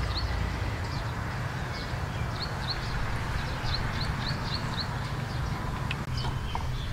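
Rural outdoor ambience: a small bird chirping in quick runs of short high notes over a steady low rumble.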